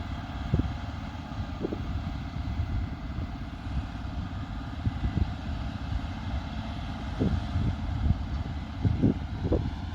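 Combine harvester running in the field: a steady deep machine rumble with a hiss over it, and a few short thumps, most of them in the second half.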